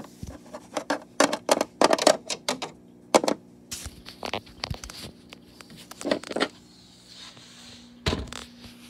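Small plastic toys clicking, tapping and scraping as they are rummaged through and handled, fast and busy for the first three seconds, then a few scattered knocks, the last about eight seconds in.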